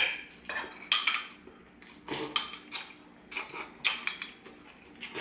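Metal cutlery clinking and scraping on a ceramic plate and a small glass bowl of chicken broth: a dozen or so short, sharp clinks, irregularly spaced.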